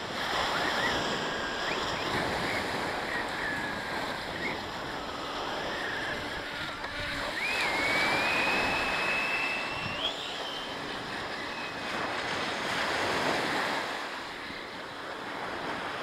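Sea surf breaking and washing up a sandy beach, swelling and ebbing as each wave comes in. A faint high whine rises slowly for a couple of seconds about halfway through.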